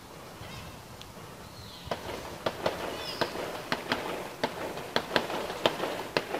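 Celebratory gunfire: a dozen or more sharp shots in an irregular string, beginning about two seconds in.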